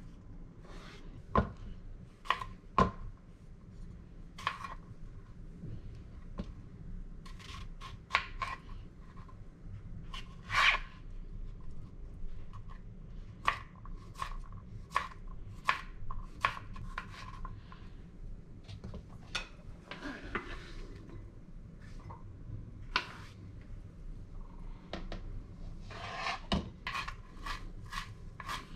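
Kitchen knife cutting vegetables on a plastic cutting board: separate knocks as a cucumber is sliced, with some scraping. Near the end comes a quick run of chops through fresh dill.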